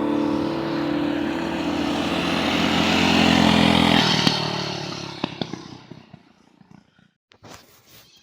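A motorcycle-type engine running steadily, growing louder with a rising hiss about three seconds in, then cutting off at about four seconds and fading away. A few light clicks follow near the end.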